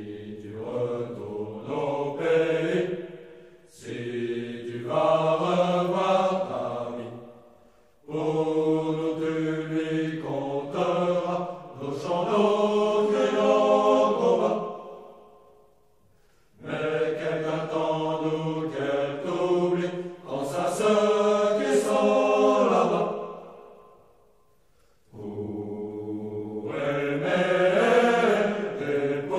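Soundtrack music of choral chanting: several voices hold long sung notes in phrases of a few seconds each, with short pauses between the phrases.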